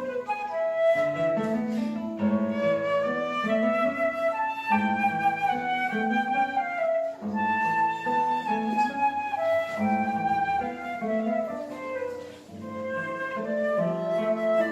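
Duo music: a flute playing a flowing melody of held notes over plucked guitar accompaniment, with a brief dip in loudness about three-quarters through.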